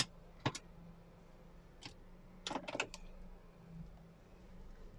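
A few faint clicks and taps of handling inside a car cabin, over a steady low hum.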